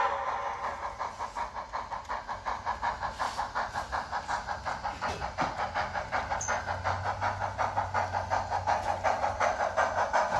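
HO scale Great Northern steam locomotive's onboard sound system chuffing in an even rhythm of about four beats a second, with steam hiss, growing louder toward the end.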